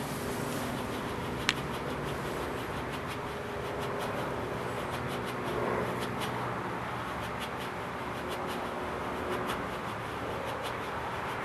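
Enola Gaye smoke grenade burning, a steady hiss with fine crackling throughout and one sharp click about a second and a half in.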